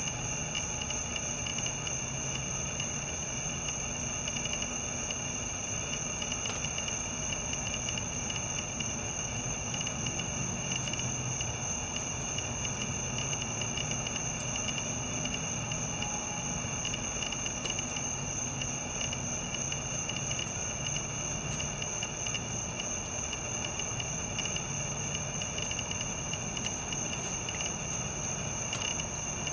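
Steady high-pitched trilling of insects, several unbroken tones at once, over a faint low hum.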